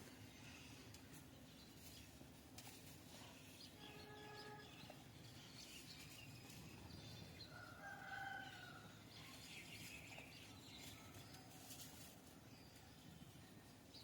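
Faint chicken calls: a short call about four seconds in and a longer one about eight seconds in, over quiet background noise.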